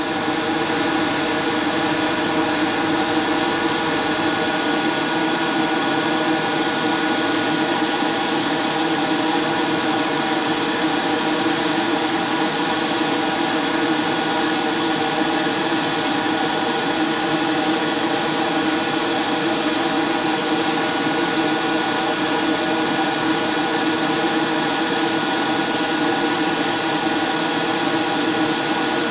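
Gravity-feed airbrush spraying paint in a steady hiss, with about a dozen brief breaks in the hiss, over a steady motor hum.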